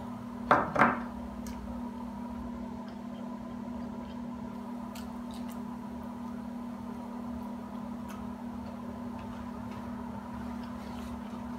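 A woman eating pizza: two short voiced 'mm' sounds about half a second in, then quiet chewing with faint scattered clicks over a steady background hum.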